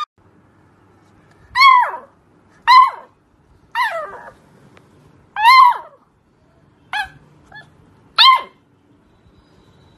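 Beagle puppy giving six short, high play barks about a second apart, each dropping in pitch, with a faint extra yip near the end.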